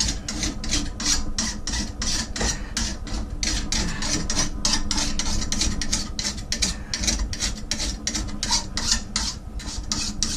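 Fine-cut hand file scraping across the cutting edge of a steel lawn mower blade held in a vise, in quick repeated rasping strokes: the edge is being sharpened, the file taking off a good amount of metal.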